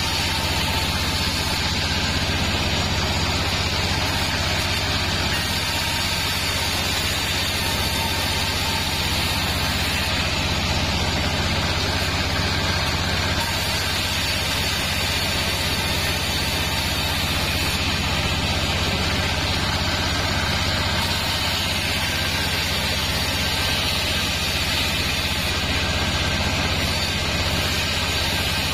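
Vertical band sawmill running steadily while its blade rips a sengon board: a constant low motor hum under an even rushing cutting noise, with no breaks.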